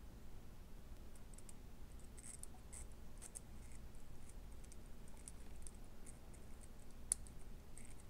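Faint, irregular small clicks and scratches from handling the freshly cleaned Pittman motor truck of a vintage Marx F3 locomotive with power leads held to it, over a faint low hum; the stuck motor is not yet running.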